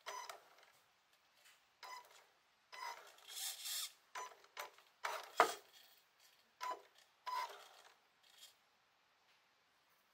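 Tamiya M-06 RC car's electric motor and gear drive whirring in about eight short throttle bursts, several beginning with a brief whine, tyres scuffing on a wooden floor. A sharper knock about five seconds in is the loudest moment.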